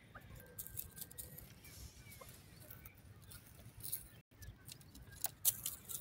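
Faint rustling and scattered clicks of dry straw stubble and handling close to the microphone, with a sharper click about five and a half seconds in.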